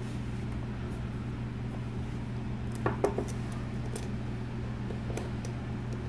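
A few light clicks and taps from the small plastic parts and spring of a Mercedes turn signal combination switch, as the stalk head is handled and twisted back into place, over a steady low hum. Most of the clicks come about three to five seconds in.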